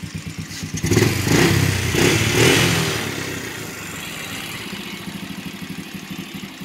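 Honda TRX90 ATV's small single-cylinder four-stroke engine running: it picks up, louder, about a second in, then settles back to a steady pulsing idle. The engine has just been brought back to life with a cleaned carburetor.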